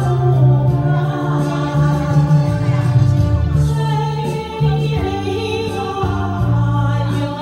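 A woman singing karaoke into a microphone over a recorded backing track, with a bass line stepping between notes underneath.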